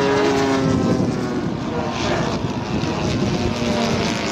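Piston engines and propellers of large-scale radio-controlled model WW2 fighter planes flying overhead, more than one engine note heard at once, the notes drifting slightly in pitch as the planes move.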